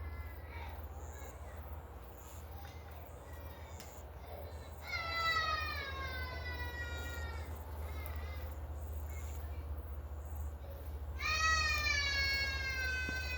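Two long drawn-out animal calls, about two and a half seconds each, sliding slowly down in pitch: one about five seconds in and one about eleven seconds in. A steady low hum lies underneath.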